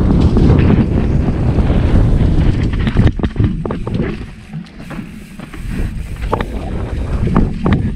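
Wind buffeting the microphone during a ride on a rough enduro trail, a loud low rumble. About three seconds in it drops and breaks into scattered sharp knocks and rattles.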